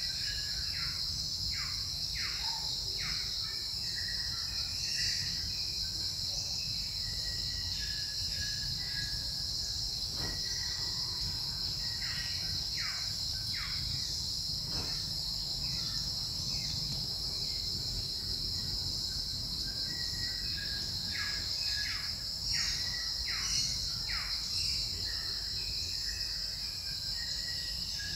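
Forest insects buzzing in a steady high drone, with runs of short chirping bird calls at times and a low rumble underneath.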